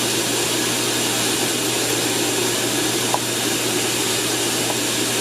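Air blower feeding a brake drum forge, running steadily: a constant rushing noise over a low motor hum.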